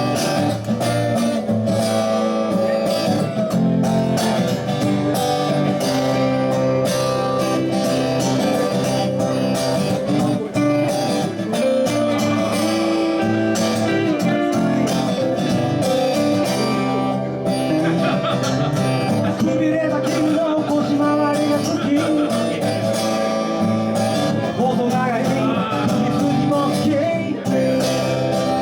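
Live guitar-led band music playing steadily.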